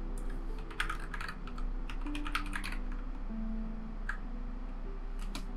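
Typing on a computer keyboard: a quick run of keystrokes about a second in and another around two and a half seconds, then two single key presses, over soft background music.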